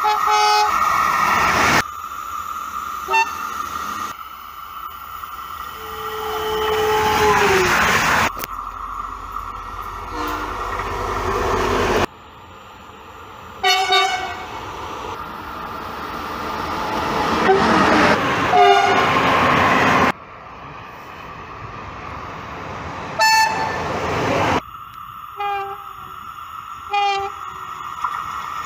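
A series of short clips of railway locomotives sounding their horns as they approach and pass: several short horn blasts, one dropping in pitch as the train goes by, with the rising rush and rumble of a passing train between them. The sound jumps abruptly at each cut between clips.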